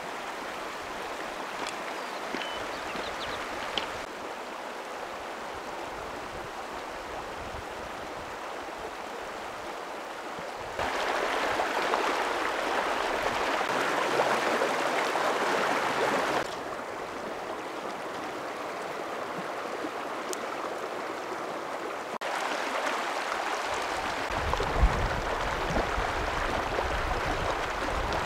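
Shallow river rushing over stones in a steady stream. Its level steps up and down several times, with a deeper rush near the end.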